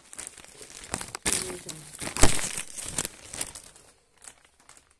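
Plastic bag crinkling and rustling as it is handled up close. The rustling comes about a second in, is loudest around two seconds in, and thins out to a few faint rustles after three and a half seconds.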